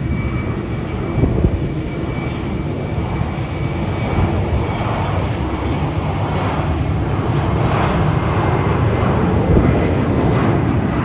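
Turbofan jet engines of a J-AIR regional airliner rolling along the runway: a steady dense roar with a faint high whine on top, growing somewhat louder over the last few seconds.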